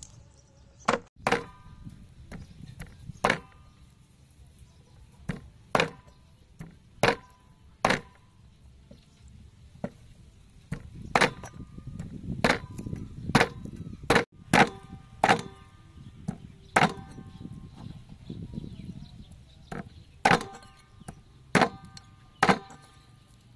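Meat cleaver chopping through boiled pork ribs on a wooden chopping board: about twenty sharp chops at uneven spacing, several followed by a brief metallic ring from the blade.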